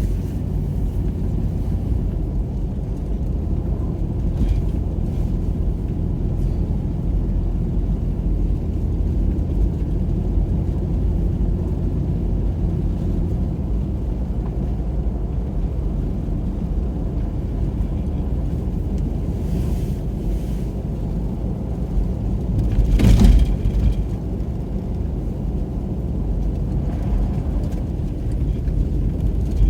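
Car driving slowly on a snow-covered road, heard from inside the cabin: a steady low rumble of tyres and engine. About 23 seconds in comes one brief, louder rush lasting about a second.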